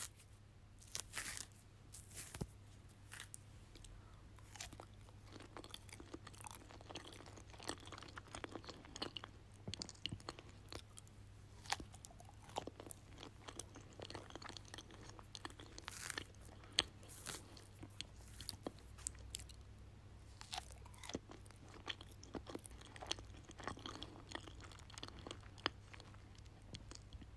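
Person biting into and chewing a banana, close up: irregular soft bites and wet mouth sounds, with a steady low hum underneath.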